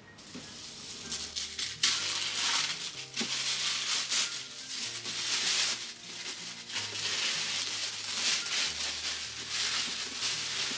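Plastic packaging crinkling and rustling in irregular handfuls as a boxed anime figure is unwrapped, over background music with a slow, stepping bass line.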